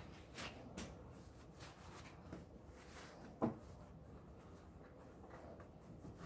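Faint rustling of cloth as strips of old shirt and denim scraps are handled and stuffed into a sewn denim dog-bone toy, with one short knock about three and a half seconds in.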